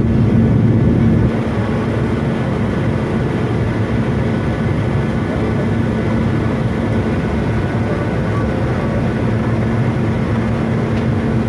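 Jet airliner cabin noise in flight: a steady engine drone with a low hum under rushing air, easing slightly about a second in.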